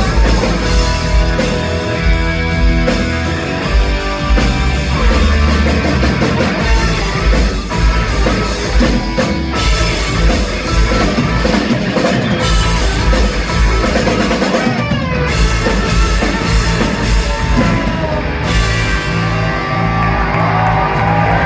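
Live rock band playing an instrumental stretch: electric guitar and lap steel guitar over bass and drum kit, heard loud through the theatre PA from the audience. A falling slide glide comes through about fifteen seconds in.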